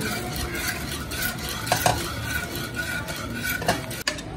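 Wire balloon whisk beating milk in a steel saucepan: a rapid, steady run of clinks as the wires strike the pan, with the liquid swishing, as sugar is mixed into the warm milk.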